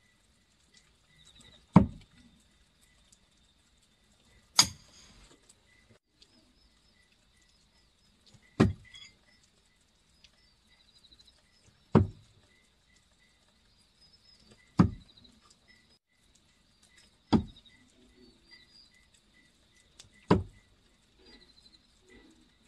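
Thrown knives striking a rain-soaked end-grain wooden target: seven sharp thuds, one about every three seconds. The hit about four and a half seconds in is brighter and rings briefly.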